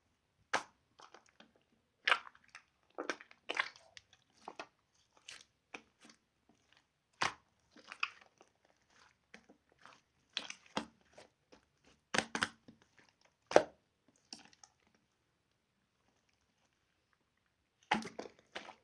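Slime being squeezed, pressed and poked by hand, giving irregular sticky clicks, crackles and pops. There is a pause of about three seconds near the end before a last cluster of clicks.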